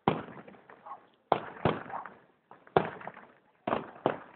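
Fireworks bursting overhead: six sharp bangs at uneven intervals, each trailing off in a short echoing rumble.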